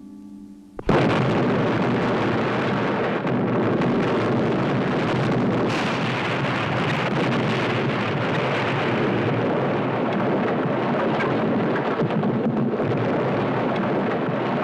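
Film explosion of a bomb hidden in a coffin: a sudden blast about a second in, then a long, loud, steady rumble of burning that runs on without a break.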